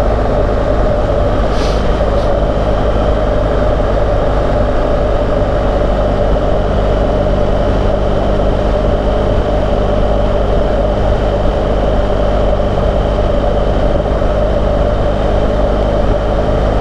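BMW GS adventure motorcycle cruising at a steady highway speed: engine and wind noise hold one even pitch, with no gear changes or revving.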